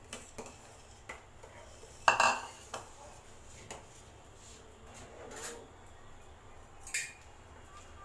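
A long stainless steel spoon scraping and clinking against a steel pot while stirring semolina into hot milk, keeping it from forming lumps. The clinks are scattered; the loudest, about two seconds in, rings briefly, and another sharp one comes near the end.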